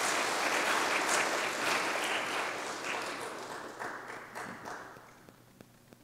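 Congregation applauding, the clapping dying away over about five seconds.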